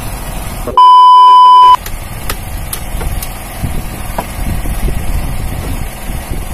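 A loud electronic bleep at one steady pitch, about a second long, dubbed over the audio so that all other sound drops out while it lasts. Around it a fishing boat's engine runs steadily, with a few light knocks after the bleep.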